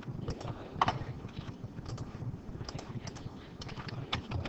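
Irregular clicks of a computer mouse and keyboard keys, with one louder click about a second in, over a low room hum.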